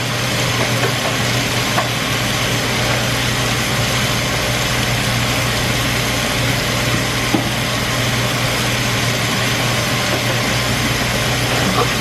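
Kitchen appliance motor running steadily, a low hum with an even hiss over it.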